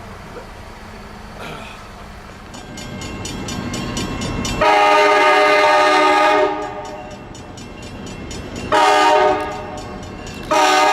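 Diesel locomotive's multi-chime air horn blowing: one long blast about halfway through, a short blast, then another long blast starting near the end, over the rising rumble of the approaching train.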